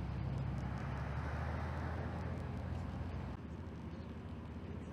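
Steady low rumble with a hiss of outdoor background noise, easing slightly about three and a half seconds in.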